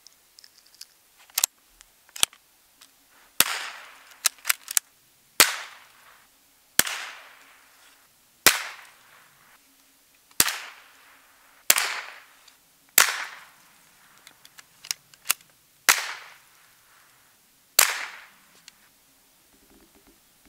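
About nine shots from a .22 Long Rifle rifle, one to three seconds apart, each a sharp crack followed by an echo dying away over about a second. A few light clicks come before the first shot and between some of the shots.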